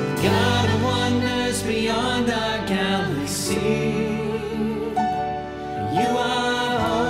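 Live worship band: voices singing a worship song over piano, guitars and drums.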